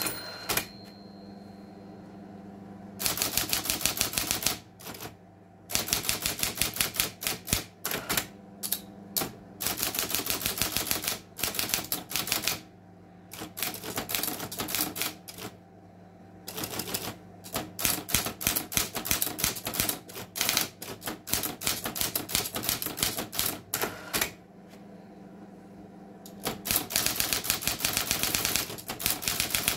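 East German electric typewriter, a copy of an Olivetti design, typing in rapid bursts of key strikes lasting a few seconds each. Its motor hums steadily in the pauses between bursts.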